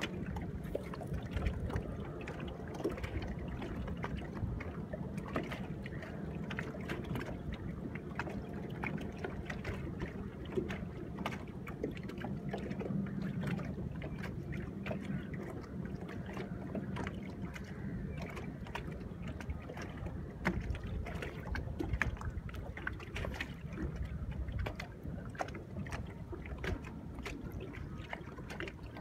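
Small waves lapping and slapping against a boat's hull, with irregular little splashes, over a steady rush of wind and water.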